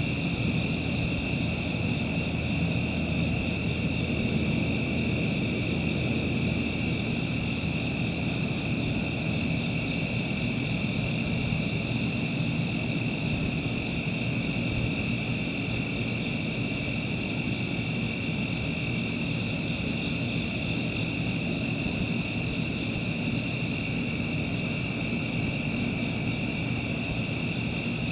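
Steady high-pitched chorus of night insects, one strand pulsing evenly, over a steady low rumble.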